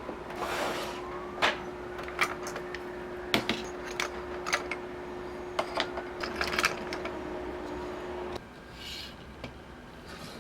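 Scattered sharp clicks and knocks of small hard objects being handled, with brief rustling, over a steady low hum that cuts off suddenly about eight seconds in.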